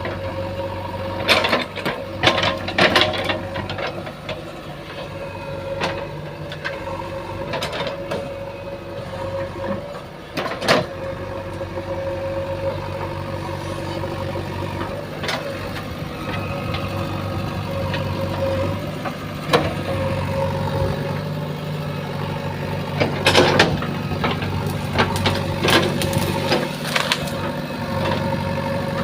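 JCB 3DX backhoe loader's diesel engine running steadily as the machine works, with sharp metallic clanks and knocks from the bucket and arm: a few early on, one in the middle, and a cluster near the end.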